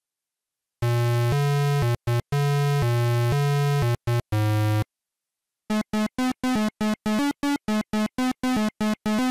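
8-bit, chiptune-style synthesized vehicle sound effects: two long low buzzy tones, each followed by a couple of short blips. After a pause, a rapid run of short higher beeps follows at about four a second.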